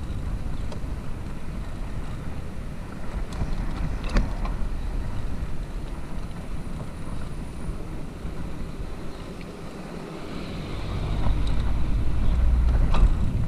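Wind buffeting an action camera's microphone on a moving bicycle, over a steady low rumble of tyres on asphalt, with a few sharp clicks or rattles. Near the end the rumble grows louder as the tyres roll over paving blocks.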